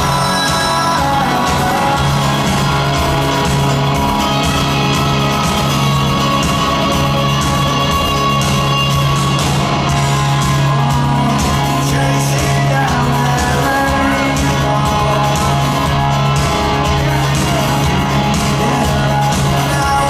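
Live rock band in full swing in an arena: electric guitars, drum kit and lead vocals playing a steady, driving song.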